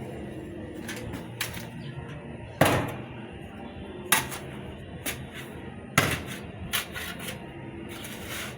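Irregular sharp knocks and clacks, hard objects striking, three louder ones about two and a half, four and six seconds in, over a low steady hum.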